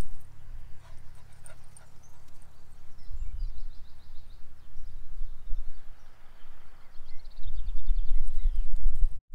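Wind buffeting the microphone, louder near the end, with songbirds singing short runs of quick repeated notes about three seconds in and again around seven seconds.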